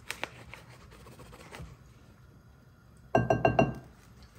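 A teaspoon tapping quickly against the rim of a bowl, about six ringing knocks in under a second, about three seconds in, shaking off the last of a spoonful of paprika.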